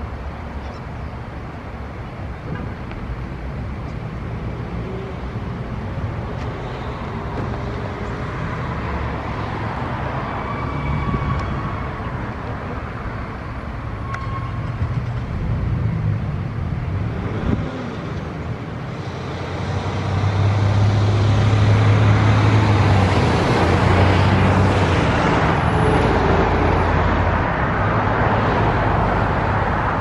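Road traffic noise: vehicles going by, getting louder for the last third.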